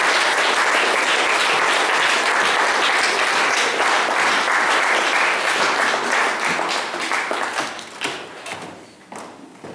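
Audience applauding, steady at first, then thinning out into scattered claps and dying away over the last few seconds.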